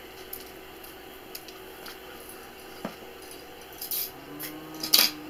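Scattered light metallic clicks and clinks, with a sharper, louder clink about five seconds in. A faint low hum comes in about four seconds in.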